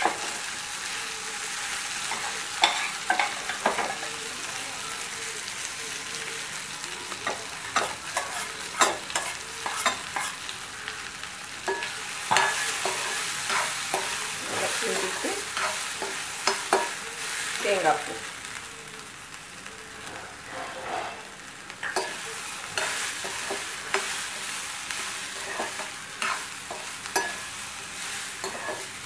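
A steel spoon stirring steamed sprouted green gram through a mustard-seed tempering in a metal kadai, with repeated scrapes and clinks against the pan over a steady sizzle of hot oil.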